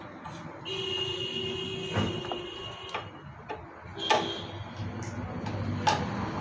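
Metal clicks and clinks of a 12 mm T-handle socket wrench tightening the caliper bolts on a Bajaj Discover 100M front disc brake. A steady high whine runs from about a second in to three seconds.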